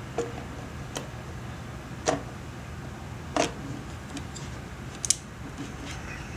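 About five sharp metallic clicks and taps, a second or so apart, as a Voigtlander Nokton 50 mm f/1.5 lens is handled and twisted onto the bayonet mount of a Leica M240 rangefinder body. A low steady hum runs underneath.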